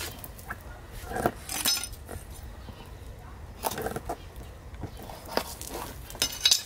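Kitchen knife slicing into a green banana trunk: short crisp cuts and scrapes at irregular intervals, with handling of the fibrous stems.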